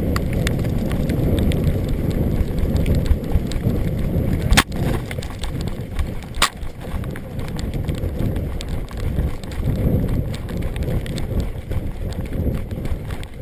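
A person running, with rapid irregular footfalls and thuds of the body-worn camera and kit. Two sharp cracks come about two seconds apart, near the middle.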